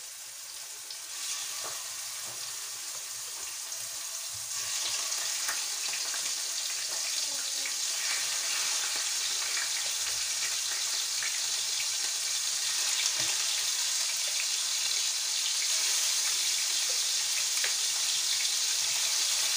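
Pieces of tuna sizzling in hot oil in a frying pan, being half-fried, with scattered crackles. The sizzle steps up about a second in and again at about four and a half seconds as more pieces go into the oil.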